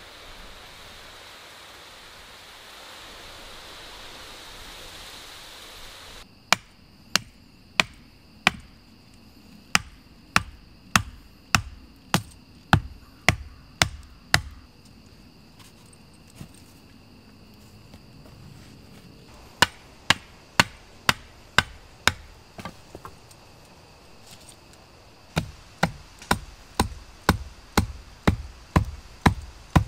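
A steady rushing noise for about six seconds, cut off abruptly. Then a hand tool strikes repeatedly with sharp, loud blows, each with a low thud, in three runs of about one and a half blows a second: about a dozen, then six, then another dozen.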